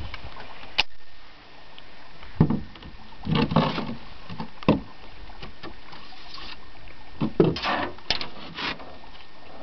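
Handling clicks, knocks and rattles of a .22 Marlin rifle being reloaded: a sharp click about a second in, then irregular clusters of knocks and rattles through the middle and again near the end.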